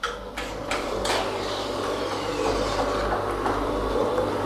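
Electric drives of a conservatory's remote-controlled roof shading films running as the films retract, giving a steady motor hum with a few light clicks in the first second.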